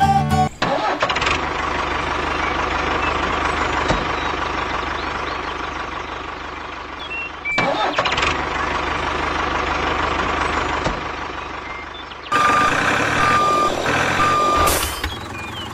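Engine running steadily, then a reversing alarm beeps three times near the end.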